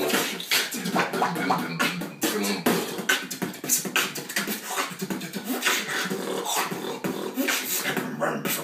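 Beatboxing: a fast, uneven stream of percussive mouth sounds, sharp clicks and hisses mimicking a drum kit.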